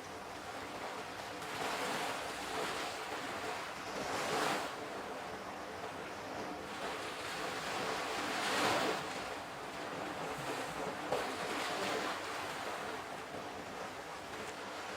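Water sound of an ambient Zen track: a rushing wash like waves that swells and ebbs every few seconds, over faint sustained tones.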